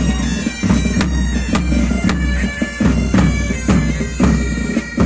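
Pipe band playing a march: bagpipes sounding their steady drone and chanter melody over bass and side drums beating about twice a second.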